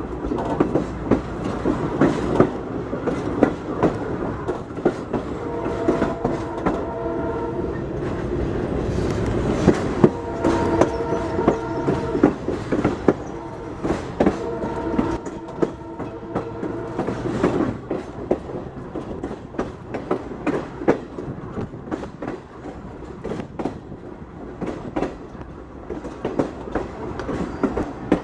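Passenger train rolling over jointed rail, the wheels clicking steadily over the rail joints. Through the middle of the stretch a diesel locomotive's multi-chime air horn sounds a few long blasts, each a chord of several steady tones.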